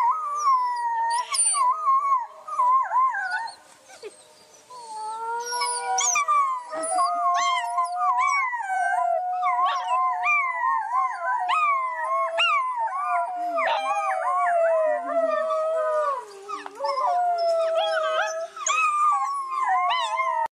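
Wolf pups howling together: several high, wavering howls overlapping, with short sharp cries among them. One or two voices at first, then after about four seconds a full chorus joins in.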